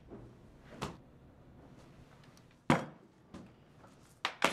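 Go stones clacked down onto a wooden Go board: a few sharp, separate clicks, the loudest about two and three-quarter seconds in and a close pair near the end.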